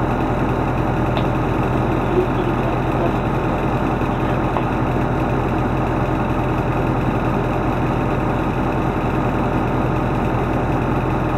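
An engine idling steadily, an even low hum that holds one pitch throughout.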